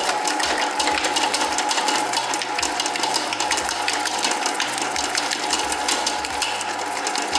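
Commercial planetary stand mixer running at high speed, its wire whisk creaming butter and powdered sugar in the steel bowl: a steady whine over a fast rattling clatter.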